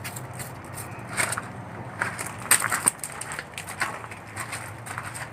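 Footsteps in slide sandals crunching on loose gravel: a few uneven steps, the loudest about two and a half seconds in.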